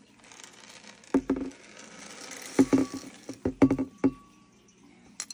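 Dry cat kibble poured from a plastic container into a ceramic bowl: a soft rattling patter of pellets broken by several sharp knocks.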